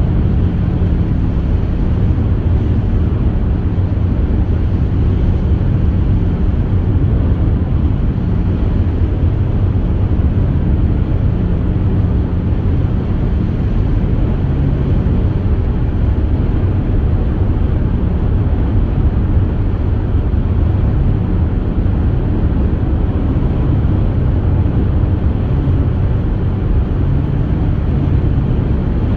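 Steady road and engine noise of a car driving, heard from inside the cabin, with a low hum that does not change.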